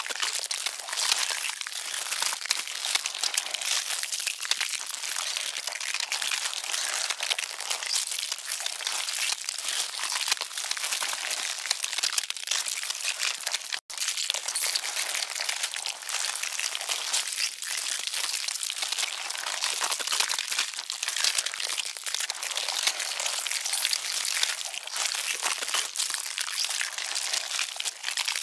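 Dense, continuous crackling and crinkling, presented as the sound of an ant swarm chewing. It drops out for an instant about fourteen seconds in, like a join in a looped track.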